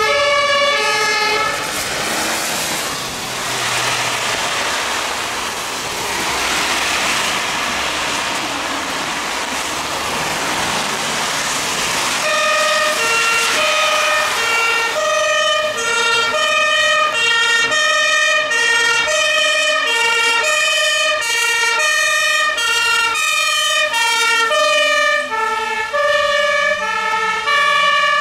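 German two-tone Martinshorn sirens of fire engines on an emergency run, alternating high and low notes. After a brief burst at the start, a stretch of rushing noise takes over. About twelve seconds in, the two-tone horn sounds again, and from about fifteen seconds two horns sound out of step with each other.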